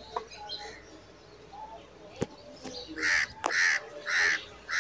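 Bird calls: faint scattered chirping, then four loud calls about half a second apart near the end. A single sharp click comes about two seconds in.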